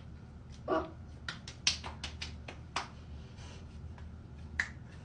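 Fingers patting and rubbing serum into the skin: a string of irregular sharp clicks and light smacks, a few a second. One short hiccup comes just under a second in.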